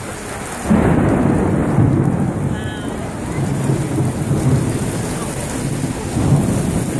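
Thunder breaks suddenly about a second in and rolls on as a loud low rumble, swelling again near the end. Rain falls steadily on the street throughout.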